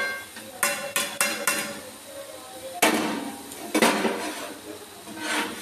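A metal spoon knocking and scraping against a metal kadai (wok) full of grated coconut and jaggery: four quick clinks early on, then louder knocks and scrapes about three and four seconds in and again near the end.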